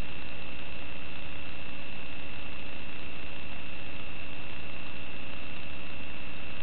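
Steady electrical hiss and hum with a constant high-pitched whine and no change at all: static on the audio feed of an analog FPV video link.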